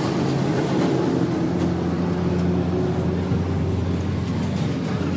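An engine running steadily: a low, even hum.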